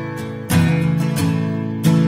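Background music: an acoustic guitar strumming chords, with strong strokes about half a second in and again near the end.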